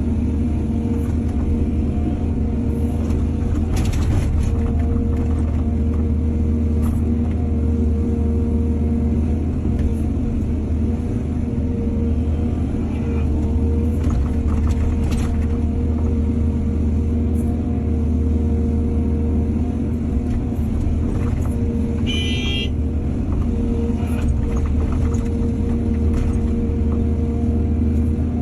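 Heavy diesel machinery running steadily at work, with a few brief clanks and scrapes of metal. Once, late on, there is a short high squeal.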